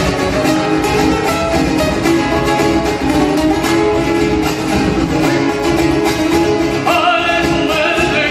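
Folk music with plucked and strummed guitars keeping a steady rhythm; a singing voice comes in near the end.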